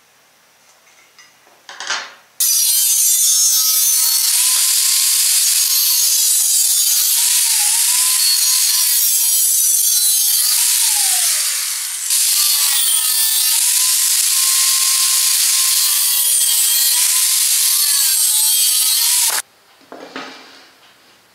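Angle grinder with a cut-off disc cutting through square steel tube: a high motor whine over a harsh grinding hiss. The pitch sags each time the disc is pressed into the metal, then the sound cuts off suddenly near the end.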